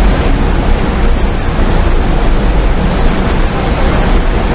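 Loud, steady roar of heavy industrial machinery: large rotating drum mills running in a crushing and screening plant, a dense, unbroken noise heavy in the low end.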